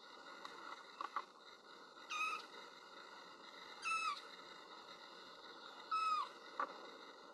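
Kitten meowing three times, high-pitched calls about two seconds apart, each dropping in pitch at the end: a kitten's crying for its absent mother. A few short clicks about a second in and again near the end.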